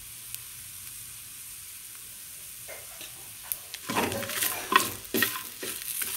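A spatula scrapes and stirs dried red chillies and coriander seeds dry-roasting in a black iron pan. There is a faint steady hiss at first, then about four seconds in loud, irregular scraping strokes begin.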